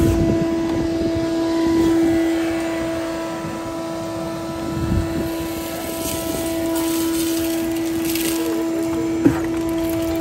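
Shop vacuum running with a steady whine, its ribbed hose sucking up debris from a carpeted compartment floor. A sharp knock about nine seconds in.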